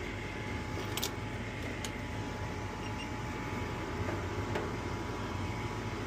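Trane gas furnace's draft inducer motor running at the start of the ignition sequence: a steady hum with a thin high whine. A few light clicks from a tool bag being handled.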